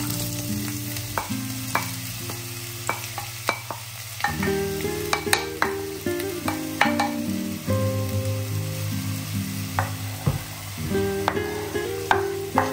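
Diced onion dropping into hot olive oil in a nonstick frying pan and sizzling, while a wooden spoon scrapes the onion off a bowl with frequent light knocks against the bowl and pan.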